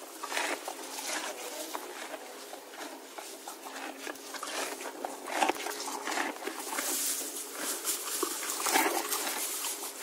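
Horse eating: irregular crunching and munching as it chews its feed, with a couple of louder crunches in the second half.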